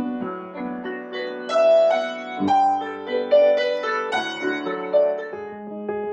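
Slow, soft piano music: single notes struck one after another over held lower notes.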